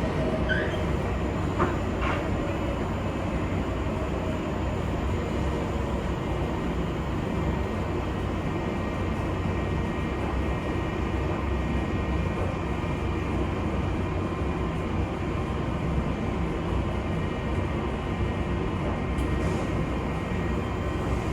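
Large coin-operated washing machine running: a steady mechanical rumble with a faint steady whine.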